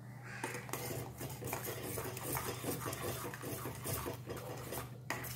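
Steel spoon stirring ragi soup in a metal pot, with quick repeated scrapes and clinks of the spoon against the pot, over a steady low hum.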